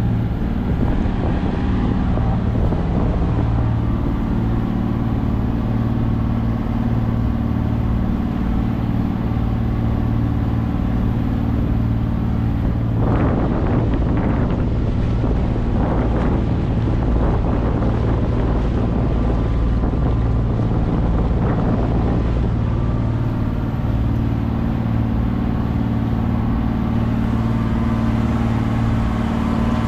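Motorized bangka outrigger boat under way: its engine runs steadily at cruising speed over the rush of water and wind. About halfway through, for several seconds, waves splash against the hull and outrigger floats, throwing up spray.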